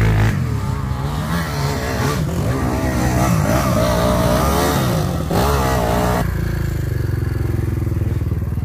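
Off-road motorcycle and quad engines revving, the pitch rising and falling, with the engine sound changing abruptly about five and six seconds in.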